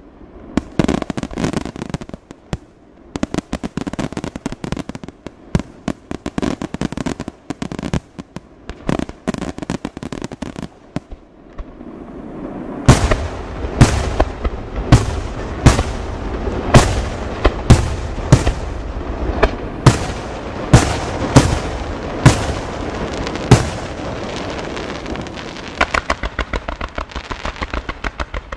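Aerial fireworks display. For about the first twelve seconds a rapid crackle of many small pops, then a continuous low rumble with loud shell bursts roughly once a second, and sharper cracks near the end.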